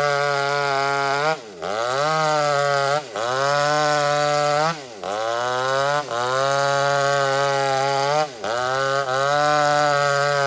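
Two-stroke chainsaw running at high revs while ripping lengthwise through old teak timber. The engine note dips sharply and climbs back up several times.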